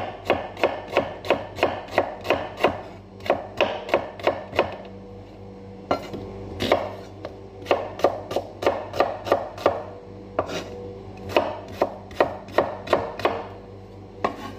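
Kitchen knife chopping a red onion on a wooden cutting board: quick runs of sharp knife strikes, about three a second, broken by a few short pauses.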